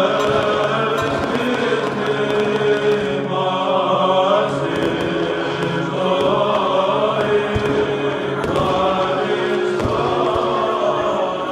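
Greek Orthodox Easter chanting: voices singing a slow Byzantine-style hymn with long held notes.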